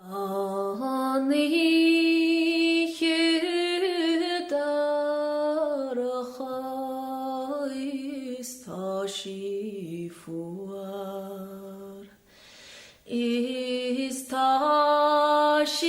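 A woman singing a slow unaccompanied song in Irish, holding long, wavering notes with short pauses for breath between phrases.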